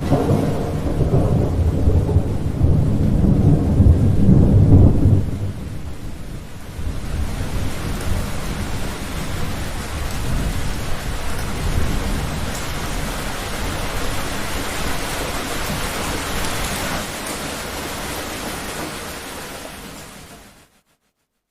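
Thunderclap with a long, loud rumble that starts abruptly and dies down after about five seconds, followed by steady heavy rain that fades and then cuts off near the end.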